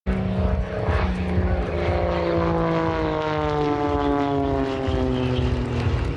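Propeller engine of an aerobatic monoplane in flight, its note falling slowly and steadily in pitch over several seconds, with a rough low rumble underneath.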